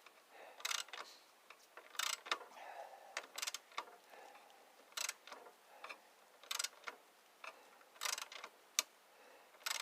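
Ratchet wrench clicking in short bursts, about nine times at uneven intervals, as a bolt is worked on a lawn tractor.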